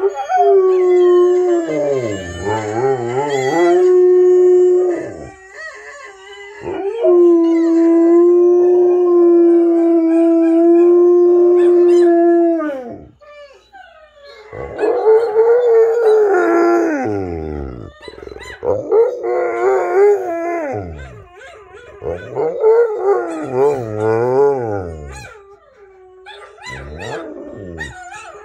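Rottweiler howling along with dogs howling from a television: long held howls, one lasting about five seconds, then shorter wavering howls that die down near the end.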